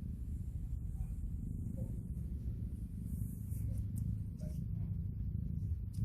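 A newborn kitten mewing faintly in a few short, thin squeaks over a steady low rumble.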